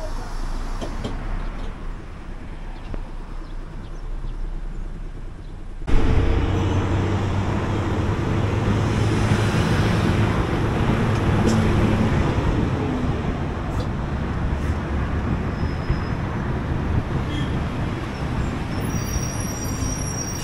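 City bus running through traffic, heard from inside: a steady engine hum with road and traffic noise. The noise steps up suddenly about six seconds in and stays louder.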